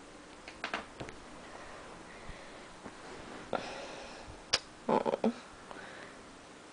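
Quiet short sniffs and rustles close to the microphone, in a few scattered bursts, with a sharp click a little past the middle.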